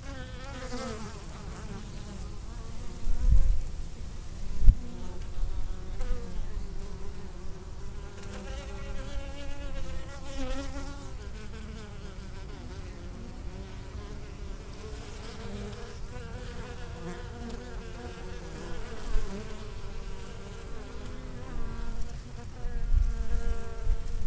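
Honey bees buzzing close by at the hive entrance, several at once, their pitch rising and falling as they fly in and out. A couple of short low thumps come about three and four and a half seconds in.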